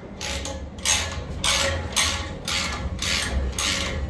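Hand ratchet wrench clicking in repeated back-and-forth strokes, about two a second, turning a bolt in.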